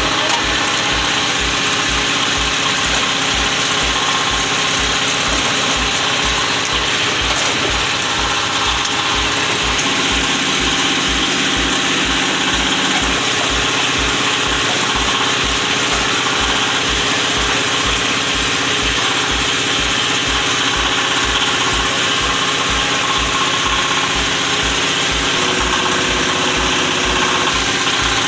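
The diesel engine driving a 15-ton hydraulic baling press runs steadily, with a regular low beat a little over twice a second and machinery clatter on top.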